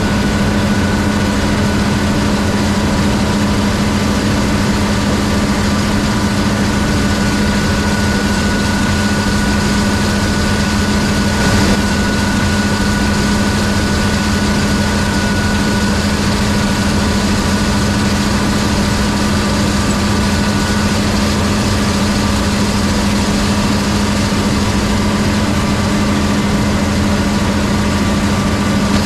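Large engine running steadily at constant speed: a low, even hum with a thin high whine above it that fades out about two-thirds of the way through.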